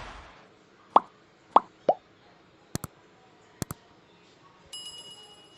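Edited-in sound effects, typical of a subscribe-reminder animation: a whoosh, three quick pops each dropping in pitch, two double mouse clicks, then a ringing bell chime near the end.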